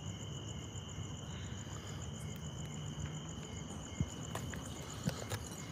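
Crickets chirping in a steady high trill, the upper note finely pulsing, over faint outdoor background noise; a couple of faint taps sound near the end.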